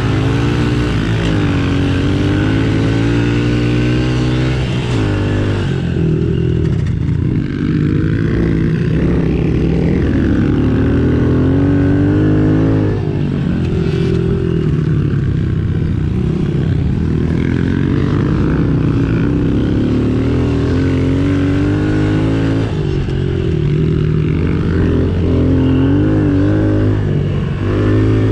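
Small 110cc single-cylinder engine being ridden hard, its pitch rising and falling again and again as the throttle is opened and closed and the gears change.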